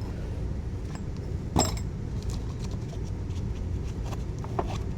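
Small parts of a multi-tool survival kit clicking and clinking as they are handled and fitted into place, with one sharper click about a second and a half in, over a steady low hum.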